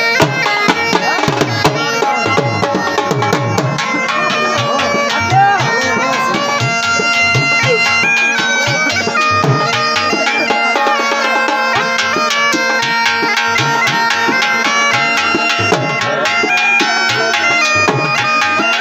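Bagpipe (been) playing a melody of held, stepping notes over a steady drone, with a dhol drum beating a steady rhythm underneath: Saraiki jhumar dance music.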